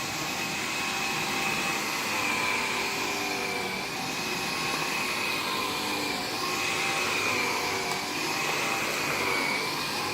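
Bissell AirRam cordless upright vacuum cleaner running steadily on carpet, a constant motor hum with a high whine that wavers slightly as it is pushed back and forth.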